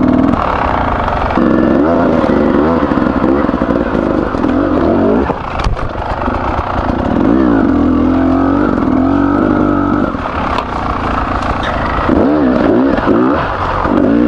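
Beta 300RR two-stroke enduro motorcycle engine revving up and down repeatedly under the rider, with one sharp knock about halfway through.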